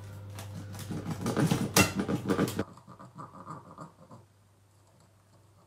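A crisp thin-crust pepperoni pizza being cut on its pan: dense crunching and scraping for about two and a half seconds, then a few fainter crunches that trail off into quiet.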